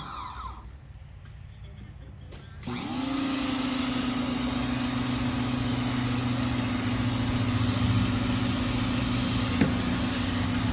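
Greenworks 1700 psi electric pressure washer's motor and pump, with the hiss of the water jet. Motor and spray cut out right at the start, start up again with a short rising whine about two and a half seconds in, then run with a steady hum.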